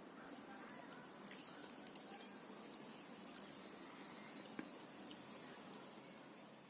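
Faint outdoor ambience: a steady high-pitched insect trill, like a cricket, with scattered small clicks and ticks, fading out near the end.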